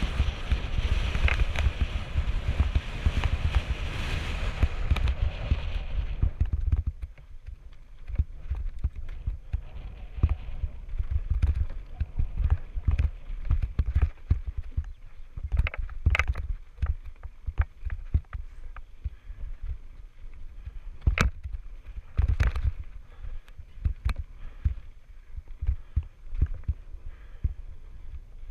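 Wind buffeting a helmet camera's microphone as a mountain bike descends at speed, dropping away about seven seconds in. It gives way to the bike rattling and clattering over a rough dirt trail, with sharp clacks from time to time.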